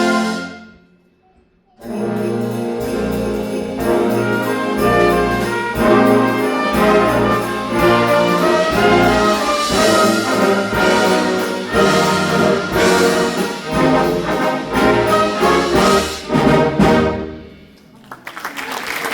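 Concert band playing a loud, brass-led passage with sharp rhythmic accents. It follows a short pause and ends on a final chord cut off near the end. Applause begins just as it stops.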